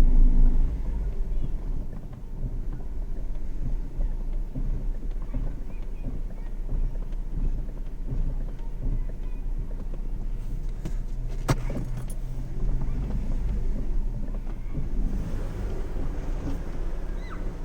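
BMW E36 car running, a steady low drone with a single sharp click about two thirds of the way through.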